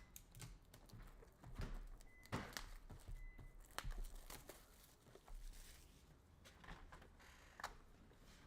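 Faint scattered clicks and rustles of objects being handled on a table, with a brief faint high tone twice in the first half.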